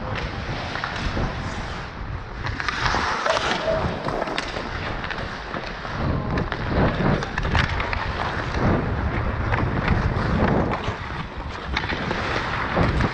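Ice hockey skates scraping and carving on rink ice, close to the microphone, with sharp clicks of a stick blade on the puck and on the ice.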